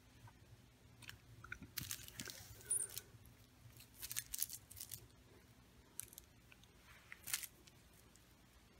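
Scattered short rustles and crinkles from a small fabric fish cat toy being handled by hand, coming in a few quick clusters of clicks.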